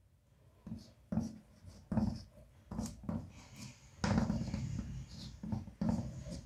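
Chalk on a blackboard: a series of short scratching strokes and taps as lines and letters are drawn, with one longer stroke about four seconds in.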